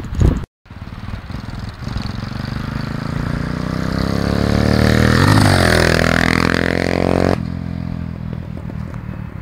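125cc supermoto motorcycle riding up and passing close by: its engine note grows louder and higher as it approaches, then drops in pitch as it goes past and fades as it rides away. The sound cuts out for a moment near the start.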